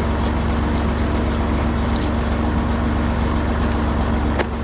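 A vehicle engine running steadily at a constant speed: a low, even drone with a steady hum. There is a single sharp knock near the end.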